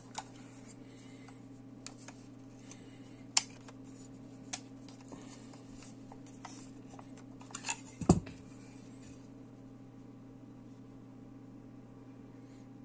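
Scattered clicks, taps and light metal knocks from a FED-4 rangefinder camera body being handled and its metal back cover taken off, with one heavier clunk about eight seconds in. A steady low hum runs underneath.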